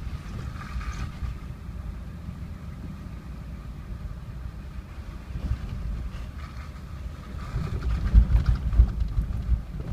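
Jeep driving on a rough dirt road, heard from inside the cab: a steady low rumble of engine and tyres, growing louder and jolting over bumps near the end.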